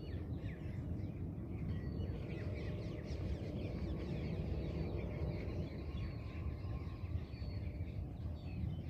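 Small birds chirping in many short, high calls throughout, over a steady low rumble.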